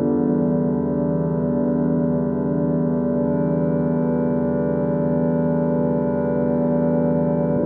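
Century-old pump organ (harmonium) holding a sustained drone chord of several reed notes, with a slow pulsing waver where close notes beat against each other. The chord shifts right at the end, and the sound rings in a large reverberant hall.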